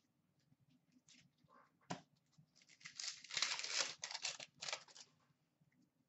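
Hockey trading cards being handled: a sharp tap about two seconds in, then about two seconds of papery rustling and tearing-like scraping as cards slide against each other or a pack is handled.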